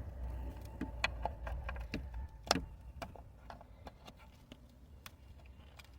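A string of small sharp plastic clicks and taps from hands working a taillight's bulb socket and wiring connector, the loudest click about two and a half seconds in, fewer and fainter after that, over a steady low rumble.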